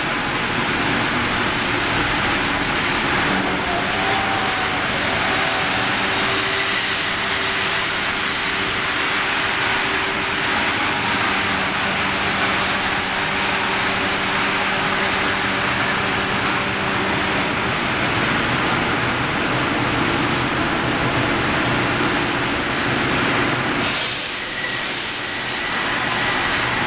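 Steady loud din of an angle-steel section rolling mill: roller conveyors and the roll straightening machine running, with a faint steady hum through the middle.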